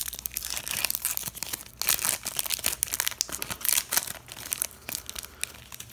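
Foil Pokémon booster pack wrapper crinkling and tearing as it is opened by hand: a dense run of irregular crackles.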